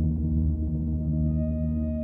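Ambient electronic music: slow synth pads over a low drone, with bright ringing tones like a singing bowl fading in about a second in.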